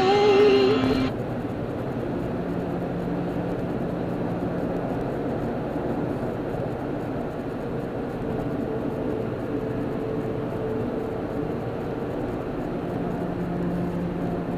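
Steady road and engine noise inside a car cabin at freeway speed. A snatch of music cuts off about a second in.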